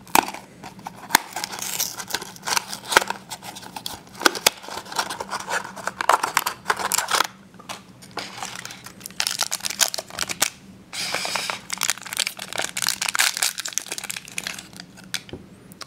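A cardboard blind box opened by hand, then its foil pouch crinkled and torn open, in a run of sharp crackles, clicks and rustles.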